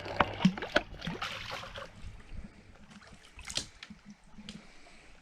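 Water splashing and sloshing at the side of a boat, with scattered sharp clicks and knocks, busiest and loudest in the first two seconds, as a just-hooked freshwater drum is brought in.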